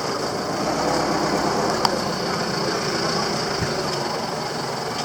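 Roadside traffic: motor vehicle engines running in a steady, noisy background, with one sharp click about two seconds in.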